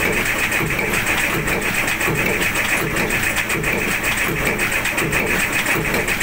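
Old tug boat's slow-running 60-horsepower diesel engine running steadily at about 250 rpm. It makes an even rhythmic beat of several pulses a second, with the clatter of its exposed rocker arms and valve gear working.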